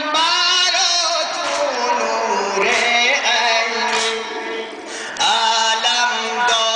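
A man chanting a devotional lament over a microphone and loudspeakers in a long, melodic line. His voice glides and holds long notes, with a brief softer stretch near the middle.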